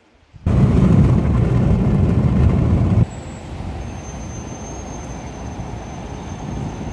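Loud road-traffic noise that cuts down abruptly to quieter, steady traffic noise about three seconds in, with a faint high whine near the end.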